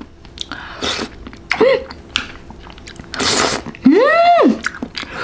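Close-miked chewing and crunching of candy in the mouth, with short bursts of crunch. There is a brief hum of enjoyment, then near the end a longer one whose pitch rises and then falls.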